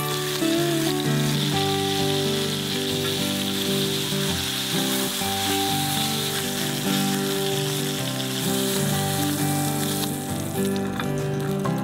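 Bone-in goat stew meat sizzling as it sears in hot fat in an enamelled cast-iron pan, a steady frying hiss that thins near the end, with background music playing.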